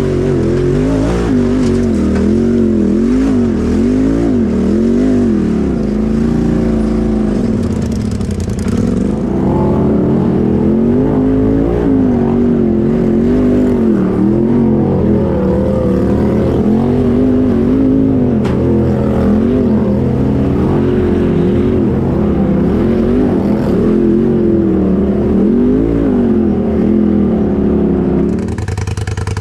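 Side-by-side (UTV) engine heard from the driver's seat, revving up and down over and over as the throttle is worked to crawl over rocks and ruts. The revving stops just before the end.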